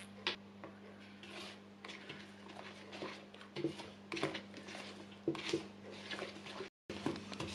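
Silicone spatula stirring and scraping thick cookie dough (butter creamed with sugar and brown sugar, egg and vanilla) around a wooden bowl: soft, irregular squishing and scraping strokes over a faint steady low hum.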